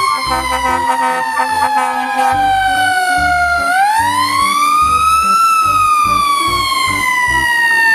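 Fire truck siren wailing. Its pitch sinks slowly for about three and a half seconds, then climbs again and starts a slow fall toward the end.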